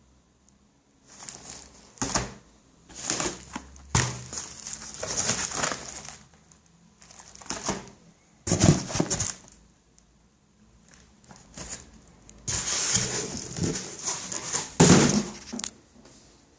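Packaging being handled and unwrapped: rustling and crinkling in irregular spells of a second or two, with a few sharp knocks, as if boxes were being set down.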